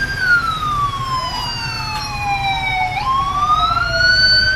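Police vehicle sirens wailing: slow rising and falling tones, with a second wail overlapping out of step, over a low rumble of vehicle engines.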